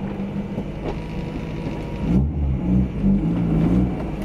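Honda H-series four-cylinder engine in a Civic hatchback, heard inside the cabin, idling high: an idle fault the owner puts down to something left unplugged when the intake was off. About two seconds in the engine gets louder and heavier as the car pulls away.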